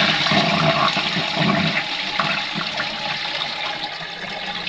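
A newly installed toilet flushing: a rush of water that is loudest near the start and slowly dies away as the bowl drains.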